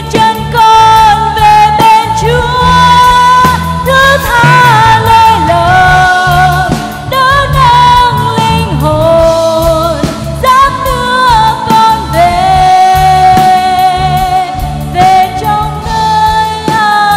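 A woman singing a worship song solo with band accompaniment, holding long wavering notes that slide between pitches.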